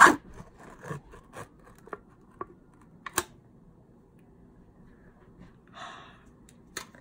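Foil seal ripped off a plastic frosting tub, a sharp tear at the start followed by a few scattered crinkles and clicks of the foil and tub.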